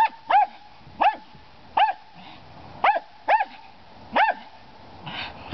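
Small dog barking in play: about seven short, sharp barks at uneven gaps, each rising and falling in pitch.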